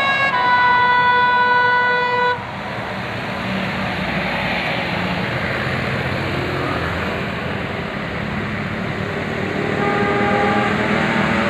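A bus's telolet basuri musical air horn sounds a long held note that cuts off about two seconds in. Engine and road noise from heavy vehicles follows. Horn notes start up again near the end.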